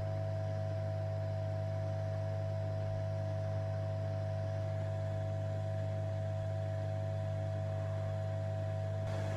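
Hot air rework station blowing steadily over surface-mount resistors to reflow their solder paste: a constant low hum with a steady whine above it and a hiss of air.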